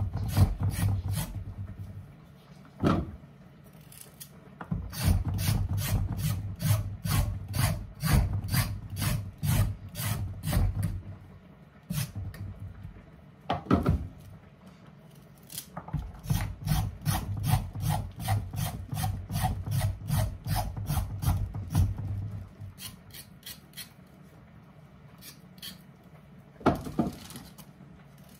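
A paring knife rasping over potatoes in quick strokes, about three a second: potatoes being peeled by hand. The strokes are heavier in some stretches and lighter in others.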